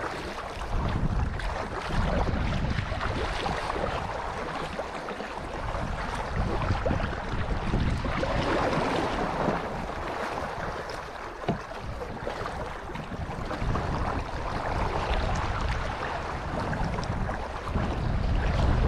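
Water rushing and splashing along the hull of a sail-driven kayak, swelling and easing, with wind buffeting the microphone.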